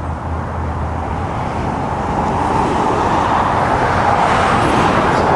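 Road traffic noise: a steady rushing that grows gradually louder, like a vehicle approaching.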